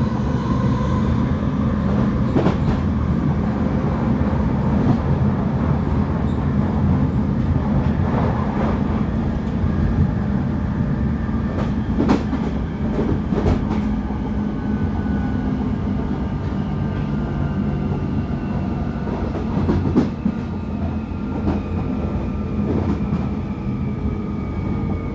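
London Underground 1996 Tube stock train running at speed, with a steady wheel-and-rail rumble and a few sharp knocks over the rails. Above it the GTO inverter and traction motor whine slowly falls in pitch through the second half as the train begins to slow.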